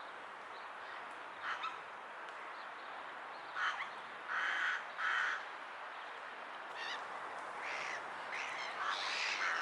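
Rook calling: a series of hoarse caws, loudest about halfway through, broken by a quick stutter of short hiccup-like notes, with more calls near the end.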